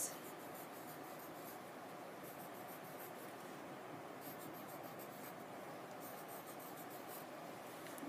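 Faint scratching of a wooden pencil on paper, drawing wavy lines in several short runs of quick strokes.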